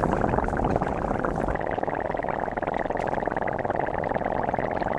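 Dry ice held against heated metal, buzzing steadily: the carbon dioxide gas flashing off between them makes the metal vibrate in a fast, even chatter.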